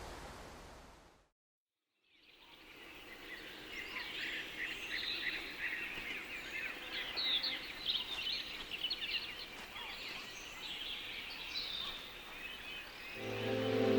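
A steady rushing noise fades out into about a second of silence, then a chorus of songbirds fades in: many quick, high chirps and trills overlapping. Sustained musical tones come in near the end.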